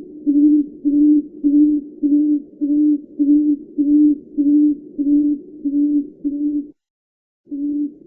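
Tawny frogmouth calling: a long, even series of low hoots, about two a second. The series breaks off for under a second near the end, then starts again.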